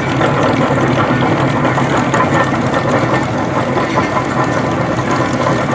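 Tractor diesel engine running steadily under load, driving a chain trencher that is cutting a narrow trench through soil, with the digging chain and earth adding a dense, even clatter.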